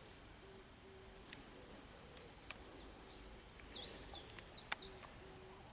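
Faint outdoor birdsong: high, downward-sweeping calls, mostly in the middle, over short, low hooting notes that repeat. A couple of sharp clicks stand out, the loudest near the end.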